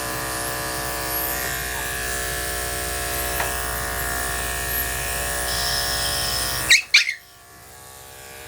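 Electric dog grooming clippers humming steadily while shaving a puppy's coat. About seven seconds in, two short sharp yelps from the puppy, the loudest sounds here, and the clipper hum drops much quieter after them.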